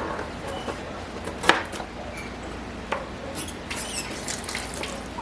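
Small kitchen handling sounds: a sharp knock about a second and a half in, a lighter one near three seconds, and a few short high squeaks shortly after.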